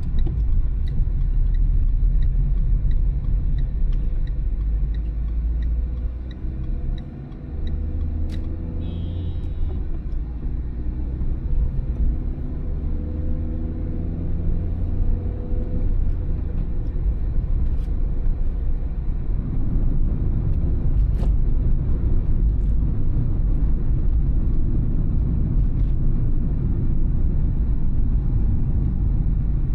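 Car engine and road rumble heard from inside the cabin while driving. The engine pitch climbs as the car accelerates from about 8 to 16 seconds in, after a brief easing near 7 seconds. Faint ticking about once a second sounds in the first few seconds.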